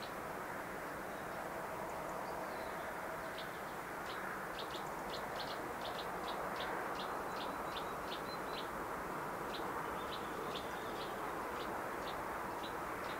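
A bird calling in a run of short high chirps, a couple a second, from about three seconds in. Beneath it is the steady distant rush of a steam locomotive working out of sight, growing slightly louder.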